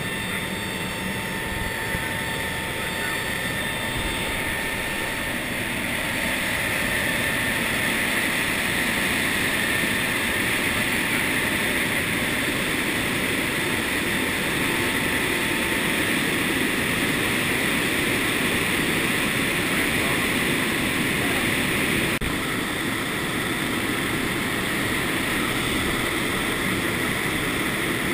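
Steady rush of wind and turboprop engine drone in the cargo hold of a C-130 Hercules in flight with its rear ramp open. The noise grows a little louder about six seconds in, as the lower ramp goes down.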